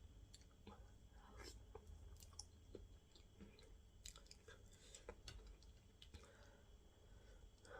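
Faint close-miked chewing of sticky plantain fufu with okra fish stew: soft, irregular mouth clicks and wet smacks.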